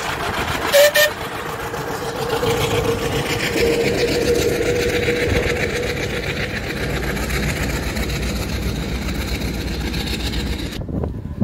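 Steam road engine running with a steady rumble, with two short, loud, sharp blasts about a second in.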